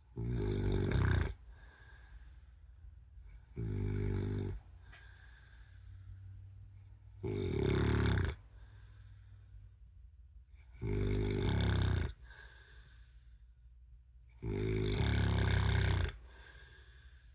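A man snoring in his sleep: five loud snores about three and a half seconds apart, each lasting a second or a little more, with quiet between.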